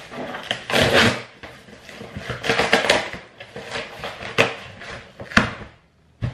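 A package being opened and handled by hand: uneven rustling and scraping with several sharp knocks and clicks.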